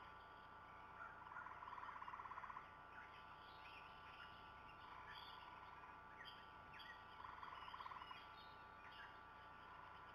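Faint outdoor birdsong: scattered small chirps, and twice a short, rapid, low trill, about a second in and again about seven seconds in.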